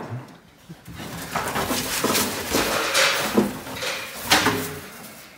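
Plastic wrapping rustling and crinkling as loose car parts are handled, with a sharp clatter about four seconds in.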